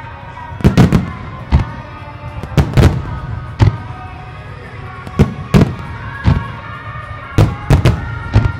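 Fireworks shells bursting in about a dozen sharp, irregularly spaced bangs, some in quick pairs and triplets, with music playing underneath.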